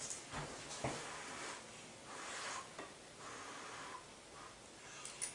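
Faint scrapes and light taps of a fork against a dinner plate as food is scooped up, with a sharper clink near the end.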